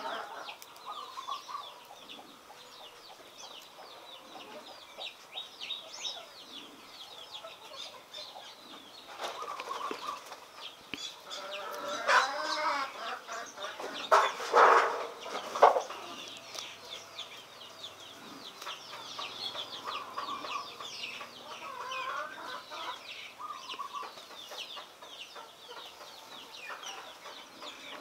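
Chickens clucking in the background, with small birds chirping throughout and a cluster of louder calls near the middle.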